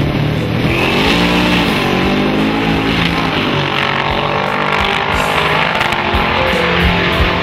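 Two drag-racing cars accelerating hard off the start line. The engines rev up, drop back at a gear change about two seconds in, then climb again. Music plays underneath.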